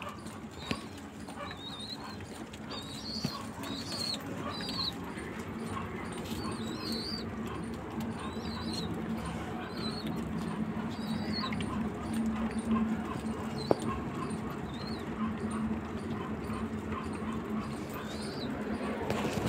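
A flock of domestic pigeons feeding on scattered grain: a low, wavering cooing runs throughout, with light pecking clicks. Short high chirps from other birds come often through the first half or so.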